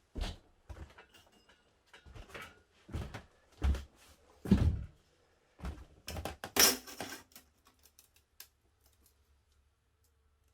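A series of irregular knocks and thuds from parts and tools being handled, then a short scraping rub about six and a half seconds in. After that only a few faint ticks are heard.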